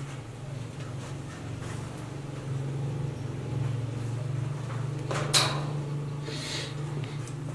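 Slow footsteps on a steel outdoor staircase, with one sharp metallic clank a little past the middle and a brief rustle just after, over a steady low hum.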